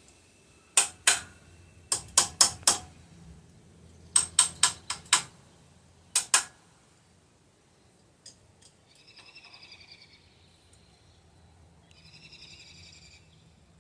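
A hammer rapping the end of a three-jaw puller: about a dozen sharp metal taps in four quick groups over the first six seconds, to shock a stuck steering wheel loose from its shaft while the puller holds it under tension.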